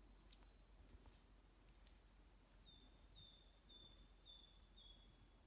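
Faint birdsong: a few thin, high single whistles, then a small songbird repeating a two-note phrase, higher then lower, about five times in quick succession in the second half.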